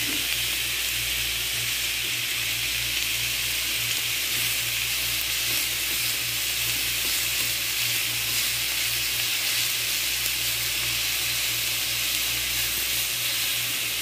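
Marinated beef bulgogi sizzling steadily in a frying pan with no oil. A steady low hum runs underneath.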